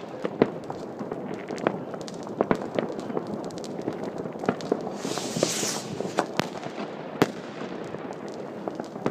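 Fireworks and firecrackers going off all around, an unbroken scatter of pops and bangs over a steady crackle. A hissing rush comes about five seconds in, and a sharp crack a little after seven seconds.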